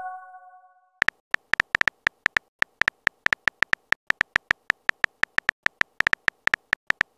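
Phone keyboard typing clicks: a run of quick, irregular taps, about four to five a second, starting about a second in as a text message is typed out. Before that, the tail of a chime of steady tones fades away: the incoming-message sound.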